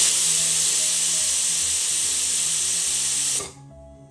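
Pressure cooker whistling: a loud, steady hiss of steam escaping past the weighted valve, which cuts off about three and a half seconds in. The whistle signals that the rice inside has cooked.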